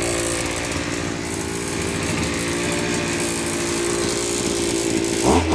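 Maruyama Aridream AD26AS-SB brush cutter's 26cc two-stroke engine (34 mm bore) running at high throttle, steady, with a quick change in pitch and a louder moment near the end.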